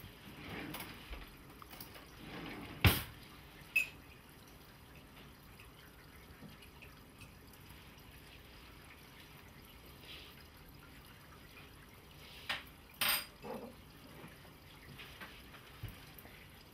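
Kitchen sounds of a hot drink being made: a few sharp knocks and clinks of a mug and cupboard, the loudest about three seconds in and a cluster around thirteen seconds, with faint liquid sounds in between.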